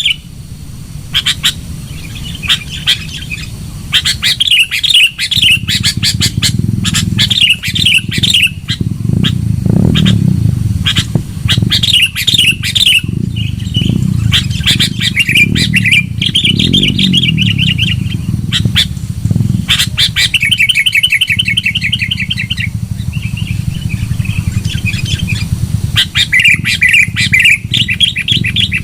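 Sooty-headed bulbul calling loudly in repeated short chattering phrases, the kind of call used as a lure. A steady low hum runs underneath.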